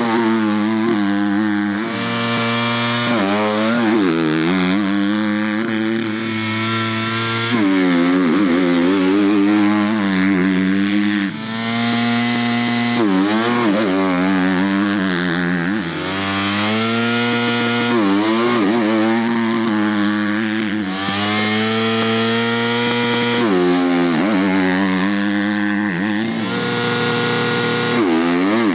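KTM motocross bike engine revving hard, its pitch climbing and dropping back again and again as the rider accelerates, shifts and rolls off.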